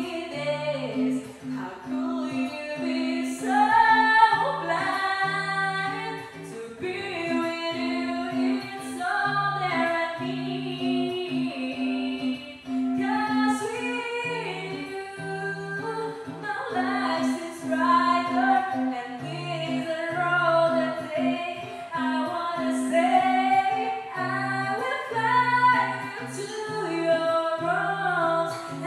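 A woman singing a song over a karaoke backing track, her voice moving in long held and gliding notes above steady sustained low accompaniment notes that change every second or two.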